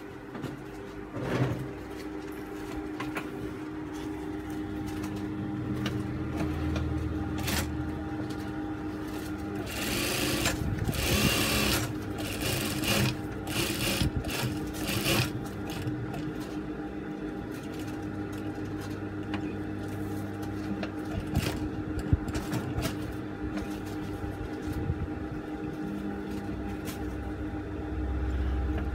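Juki industrial sewing machine running: a steady motor hum, with runs of stitching and scattered clicks, and a louder noisy stretch about ten seconds in.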